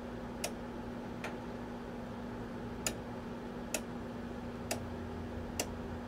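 Rotary switch knob on an analog oscilloscope being turned a detent at a time: six sharp clicks, irregularly spaced about a second apart. A steady low hum runs underneath.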